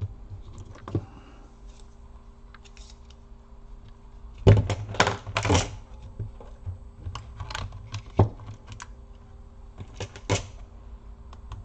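Hard plastic clicks and knocks from a laptop battery pack being handled and fitted into the laptop's battery bay. There is a quick cluster of loud knocks about halfway through, then a few single sharp clicks.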